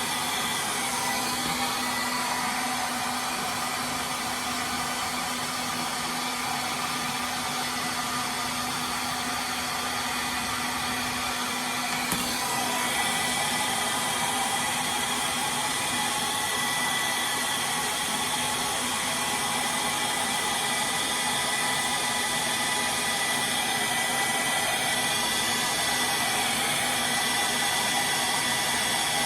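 Handheld hair dryer blowing steadily, its tone shifting slightly about twelve seconds in.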